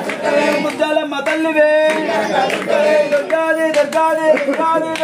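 Devotional singing with hand clapping: voices hold and change sung notes, with sharp claps in between.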